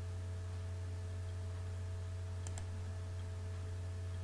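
A computer mouse double-clicking about two and a half seconds in, over a steady low hum.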